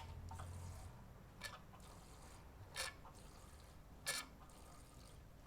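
Primer bulb on a Briggs & Stratton lawn mower engine being pressed repeatedly, with four short faint clicks about every second and a half. The primer is now pushing fuel through.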